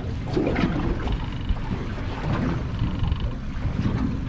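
Wind rumbling on the microphone over the wash of the sea around a small fishing boat.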